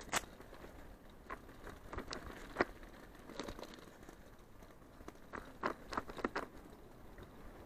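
Tyres rolling and crunching over a sandy dirt trail, with irregular sharp rattles and knocks from the rig jolting over bumps.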